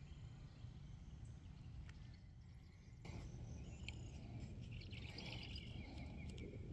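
Quiet lakeside outdoor ambience: a low steady rumble with faint chirping from birds or insects, the chirping busier in the second half.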